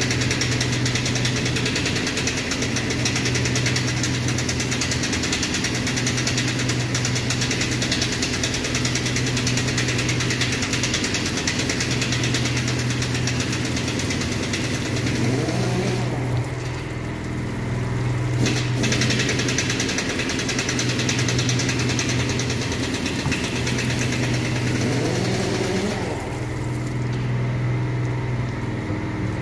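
Water from a hose hissing through a car radiator core and splashing out of it, with the spray cutting out briefly twice. Under it runs a steady low hum of a motor.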